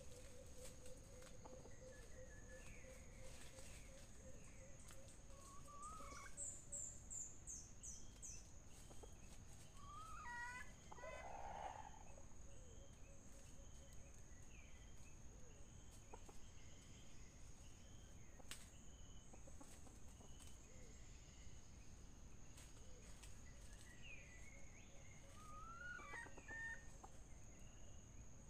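A red junglefowl rooster gives one short call about eleven seconds in. Small birds chirp and a steady high insect whine runs underneath.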